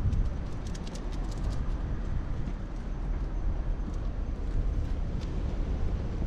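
Steady low outdoor rumble, with a quick flurry of light clicks about a second in.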